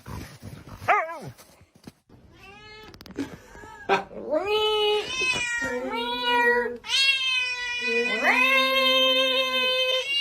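Angry cat yowling: a short call about a second in, then a run of long, drawn-out wails that get louder and hold steady in pitch.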